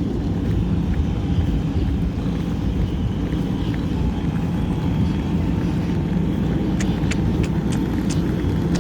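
Steady low rumble of a vehicle. Near the end comes a run of sharp, regular clicks, about four a second.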